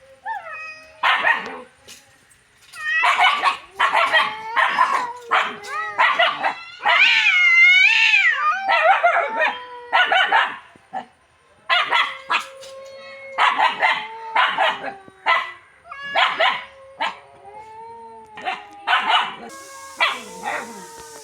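Puppy barking aggressively in rapid clusters of short, high yips and barks, with one longer wavering cry about seven seconds in.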